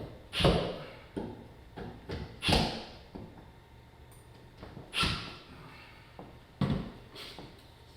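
A handful of separate knocks and clicks from hand work on a walk-in cooler door hinge, with caps and tools against the metal hinge. The loudest come about half a second, two and a half seconds and five seconds in.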